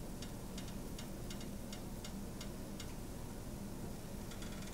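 Faint, regular ticking, about three or four ticks a second, over a steady low background hum.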